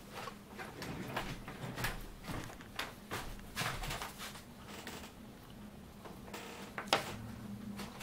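Faint scattered clicks and light knocks over a low steady hum, with one sharper click about seven seconds in.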